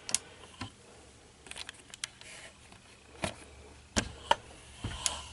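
Clicks and knocks of a clamp mount and camera being handled while the clamp is fitted to a shelf edge and the camera is set on it: a scattered string of sharp clicks, the two loudest about four seconds in.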